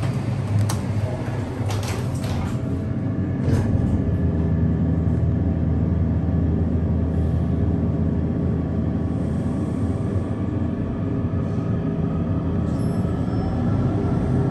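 Hydraulic elevator car with a few clunks from the button and the closing doors in the first few seconds, then the pump motor hums steadily as the car travels.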